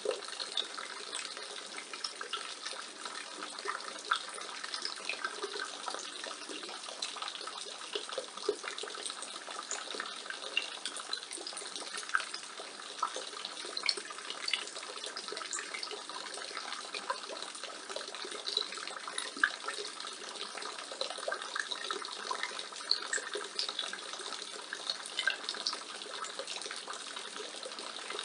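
Rainwater pouring steadily from a roof gutter and splashing below, with many small irregular splashes and drips over a continuous rush of water.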